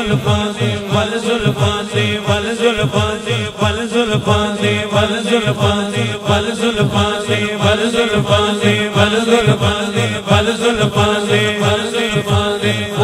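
A man singing a Punjabi naat into a microphone, chant-like held notes through a PA, over a steady low drone and low thumps about twice a second.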